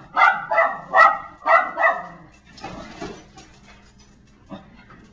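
Pet dog barking, a quick run of about five loud barks in the first two seconds, then a few softer sounds.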